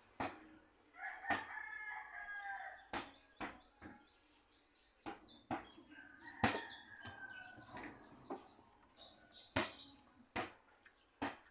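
A rooster crowing twice, one long call about a second in and another about five and a half seconds in, with scattered sharp clicks in between.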